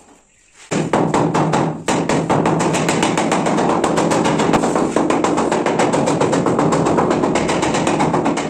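Rapid, steady thumping of a cloth-padded pole tamping a marble slab down into its mortar bed, starting abruptly under a second in.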